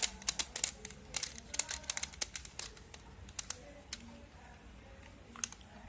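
Plastic Rubik's Cube being twisted by hand, its layers clicking and clacking in quick irregular turns, dense for the first few seconds and then only a few scattered clicks.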